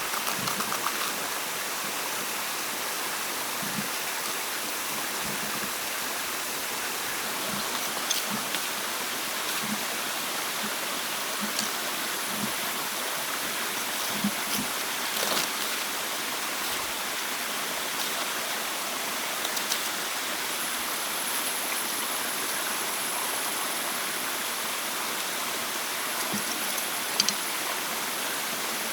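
Steady rush of flowing water, with scattered light knocks and clicks over it. A faint, thin high tone comes in about two-thirds of the way through.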